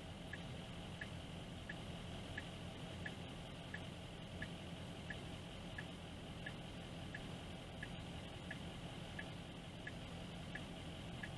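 Car turn signal ticking steadily, about one and a half ticks a second, over the low hum of the car idling, heard inside the cabin.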